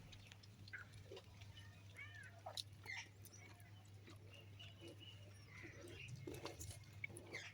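Young goat kid giving several short, faint, high-pitched bleats, with scattered soft clicks and a steady low hum underneath.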